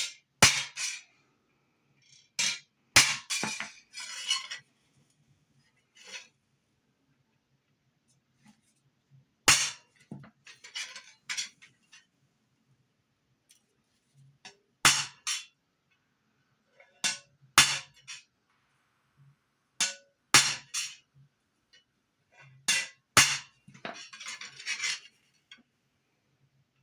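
Hammer striking a steel stamp or chasing tool into a metal buckle: sharp metallic blows, single or in quick pairs, every few seconds with pauses between, and a short metallic rattle as the tool is shifted along the line.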